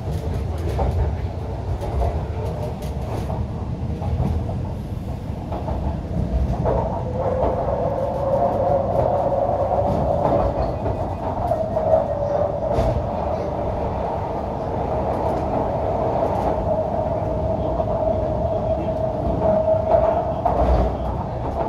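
MTR Q-Train heard from inside the passenger car while running: a steady rumble with scattered clicks over the rails. About seven seconds in a whine comes in, rising a little in pitch and then holding steady.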